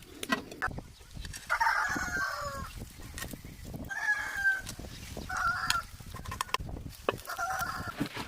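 Domestic chickens calling, a rooster crowing and hens clucking in four separate bouts, with scattered sharp clicks and knocks between them.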